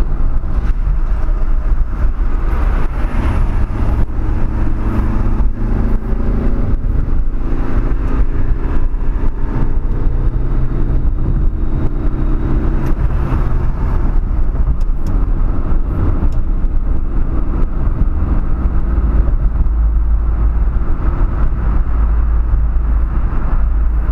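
A car's engine hum and tyre road noise at highway speed, heard inside the cabin: a steady low rumble, with the engine's tones fading about halfway through.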